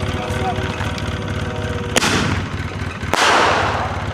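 Consumer aerial firework shell launching from its tube with a bang about two seconds in, then bursting a second later with a louder bang and a crackling shower that fades over about a second. A vehicle engine idles steadily underneath.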